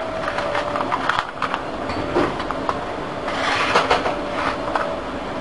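Paper crinkling and rustling with many small clicks as lye flakes are tipped from a folded sheet into a mug of water, a spoon scraping and tapping against the paper; the rustling thickens about three and a half seconds in. A faint steady hum runs underneath.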